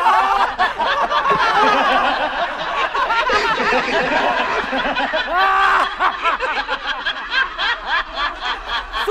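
Several men laughing loudly together in hearty, overlapping cackles.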